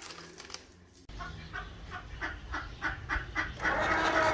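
Poultry calling: a run of short repeated clucking calls, then from about three and a half seconds a louder, denser chorus of calls.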